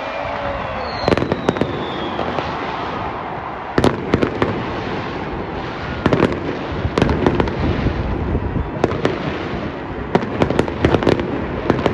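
Fireworks display going off: sharp bangs and crackles that come in clusters, a few at a time, with a quick run of reports near the end, over a steady background noise.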